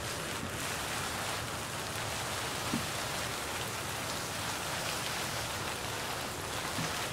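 Forest fire burning through dry leaf litter on the forest floor: a dense, steady crackle with one louder pop just under three seconds in.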